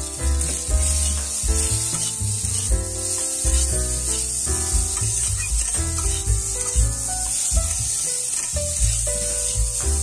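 Eggplant pieces and neem leaves sizzling as they fry in oil in an aluminium kadai, stirred with a spatula. Background music with a melody and a steady bass beat plays over it.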